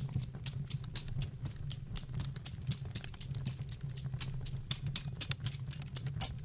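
Wood fire crackling in a fireplace: irregular sharp pops and snaps, several a second, over a low steady hum.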